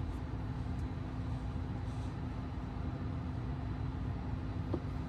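Steady low rumble with a faint constant hum, the background noise inside a car's cabin, with a faint click near the end.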